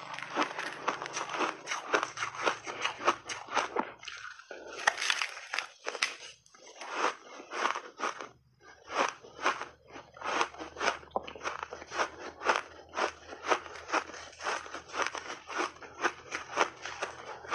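Crunchy refrozen blended shaved ice being bitten and chewed: a rapid, close run of crisp crunches, with a couple of short lulls near the middle.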